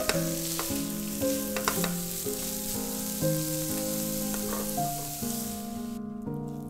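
Grated carrots and sliced onions sizzling in a nonstick frying pan while a silicone spatula stirs them, with small scrapes and taps; the sizzle cuts off suddenly about six seconds in. Soft background music plays underneath.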